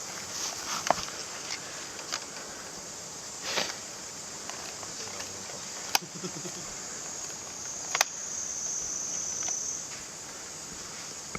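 A steady high insect drone, stronger near the end, under rustling and light footsteps, with two sharp clicks about six seconds in and two seconds later.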